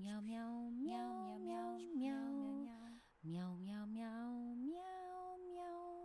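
A woman's voice singing a simple, lullaby-like melody in held, stepped notes. It is sung as two phrases with a short break about three seconds in, and the second phrase ends on a long held high note.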